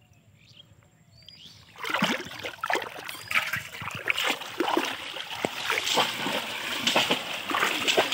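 Water splashing and sloshing in shallow muddy water, starting about two seconds in and carrying on as a quick run of irregular splashes: bamboo polo fish traps being plunged down into the water and lifted out again by people wading.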